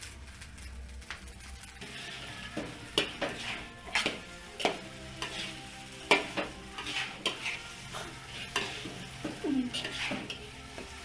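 Fried rice with a freshly added egg sizzling in a frying pan while it is stirred. A cooking utensil scrapes and knocks against the pan every second or so.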